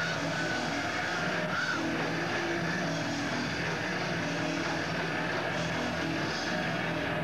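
Hardcore punk band playing live: distorted electric guitar and drums in a dense, steady wall of sound with no vocals.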